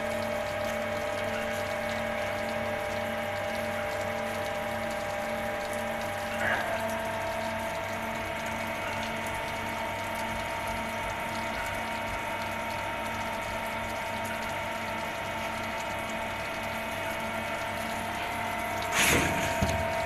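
Okuma MC-6VA CNC machining center running: a steady machine whine over a pulsing hum. The whine steps up slightly in pitch with a click about six and a half seconds in. A short loud clatter comes near the end.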